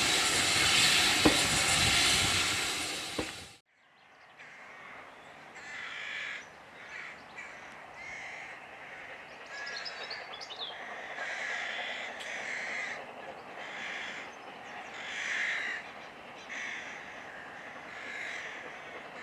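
A steam train passing close, a loud hiss that cuts off abruptly about three and a half seconds in. Then crows cawing repeatedly, about once a second, with a small bird chirping briefly in the middle.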